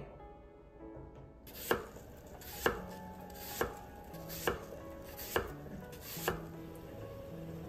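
Kitchen knife slicing an apple on a wooden cutting board: six even chops about a second apart, each ending in a sharp knock of the blade on the wood.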